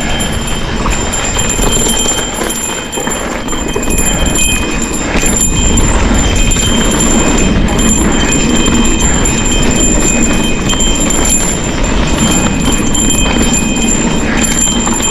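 Santa Cruz Bronson mountain bike rattling down a rough trail, with the cow bell fitted to it clanking and ringing steadily as a warning to others on the trail, over a constant rumble of tyres and rattle.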